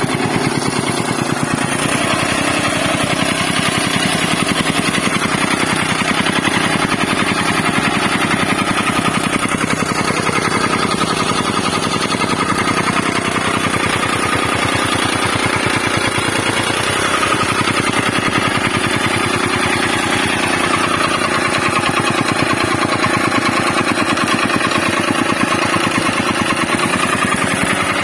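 Tamping rammer soil compactor running steadily, its small engine driving the foot in rapid, even pounding strokes as it compacts the ground.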